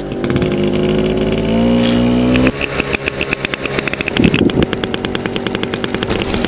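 A motor engine revving, its pitch rising over the first two seconds or so. It then changes abruptly to a rapid, even pulsing beat.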